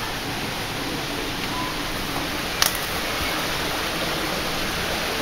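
Shallow stream running over stones, a steady rushing. A single sharp click about two and a half seconds in.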